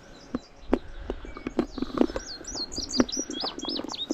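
A small songbird singing a rapid run of high, slurred chirping notes that begins about halfway through. A string of sharp taps or knocks close to the microphone, the loudest sounds, runs alongside.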